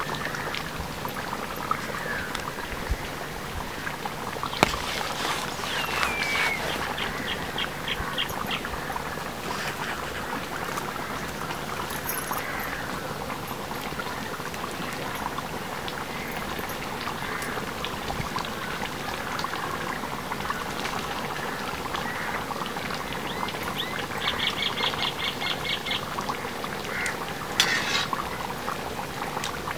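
Lamb curry boiling hard in a large iron kadai: a steady bubbling and simmering hiss. Two short runs of quick, high chirps sound over it, a few seconds in and again near the end.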